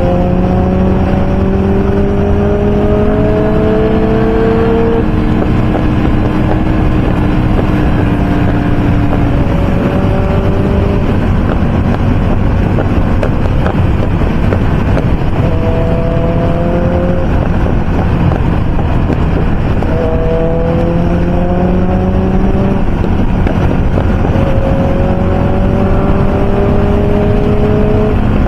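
Motorcycle engines running at highway speed under steady, heavy wind noise. The engine notes climb slowly in pitch, break off and start again several times.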